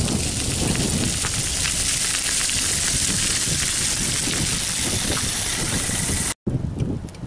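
Walk-behind broadcast spreader scattering salt onto an icy sidewalk: a steady, grainy hiss with fine ticks of salt striking the ice. It cuts off abruptly about six seconds in.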